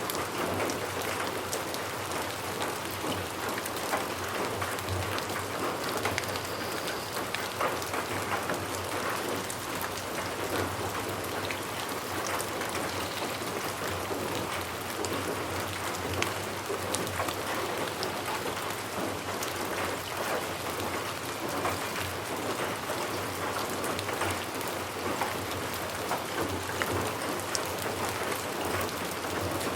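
Steady rain falling, a dense hiss with many fine drop patters on a surface.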